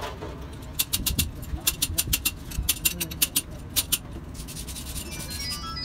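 Long steel rod clicking and clinking against a truck wheel hub as it is worked in the hub: a quick, irregular run of sharp metallic clicks lasting about three seconds, followed by faint short high chirps near the end.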